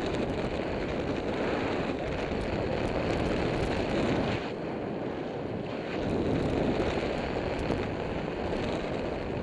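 Airflow of a paraglider in flight buffeting the microphone: a steady rushing wind noise that eases briefly around the middle.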